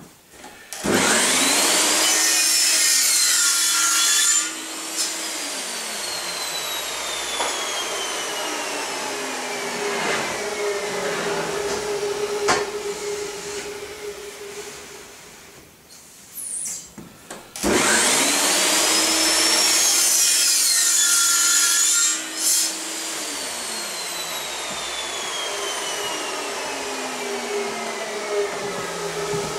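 Miter saw cutting aluminium V-slot extrusion, twice. Each time the motor starts with a rising whine and runs loudly through the cut for about four seconds, then winds down with a long falling whine. The second cut comes a little past halfway.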